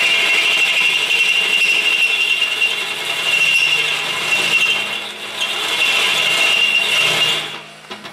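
Drill press with a twist bit boring through a steel plate: a steady high squeal of the bit cutting, with the motor humming underneath, until the cutting stops near the end. The operator takes the bit for getting dull.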